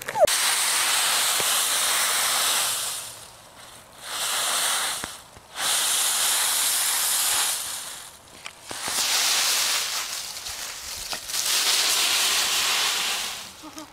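Dry fallen leaves rustling and crackling as a puppy burrows and bounds through a leaf pile, in about five bursts of one to three seconds each with short pauses between.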